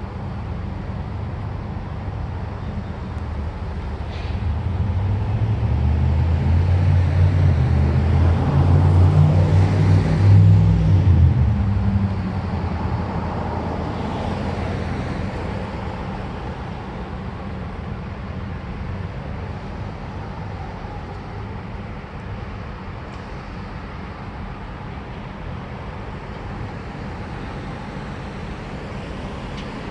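Road traffic driving past: cars and pickup trucks, with one vehicle's low rumble building to its loudest about ten seconds in, then fading away.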